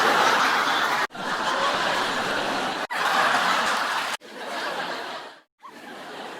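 A string of short stock laughter sound effects played one after another, each about a second or two long and cut off abruptly: group laughter and snickering, the last two quieter and fading out.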